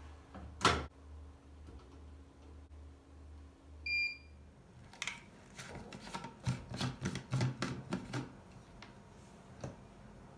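A household appliance's low hum, with a sharp click early, ends just after a short electronic beep about four seconds in. A quick run of clicks and knocks from handling things follows.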